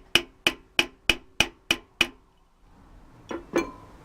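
Hammer tapping metal on metal in a steady rhythm, about three blows a second, driving a new rear wheel bearing into place. The tapping stops about two seconds in, and two lighter metallic clinks follow near the end.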